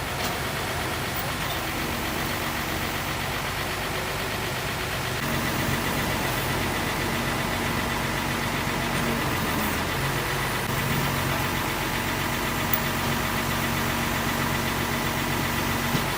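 An engine running steadily, a low even hum over a constant hiss.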